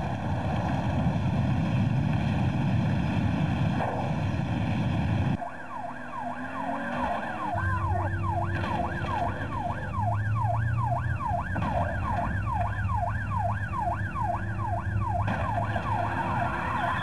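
A loud roar from a car explosion that cuts off about five seconds in. A police car siren then comes in, sweeping quickly up and down about twice a second, over a low engine hum.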